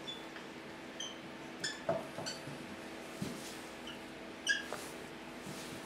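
Dry-erase marker squeaking on a whiteboard while writing: a string of short, high squeaks and small taps, the loudest about four and a half seconds in, over a faint steady hum.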